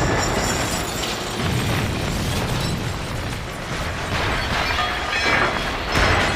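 Large film sound-effect explosion: a sudden blast followed by a long, dense rumble of fire and debris, swelling again near the end.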